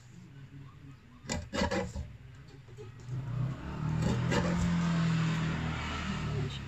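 A laminated card clacks a few times in quick succession against the plastic board of a paper cutter. A louder steady drone follows for about three seconds, fading near the end.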